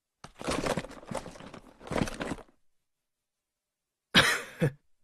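A man's short, breathy wordless vocal sounds: three quick huffs or coughs in the first two seconds, then one more brief one near the end.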